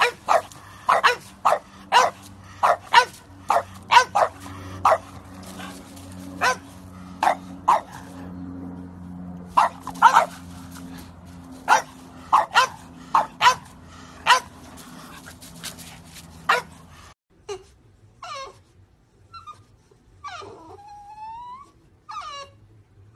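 French bulldog puppies barking over and over, short sharp barks at irregular intervals. About two-thirds of the way through the barking stops and a French bulldog whines and whimpers, its pitch sliding up and down.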